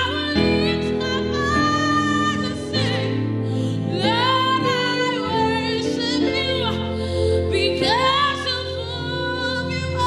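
Slow worship music: a singing voice holds long, gliding phrases over sustained chords, with new phrases beginning about every four seconds.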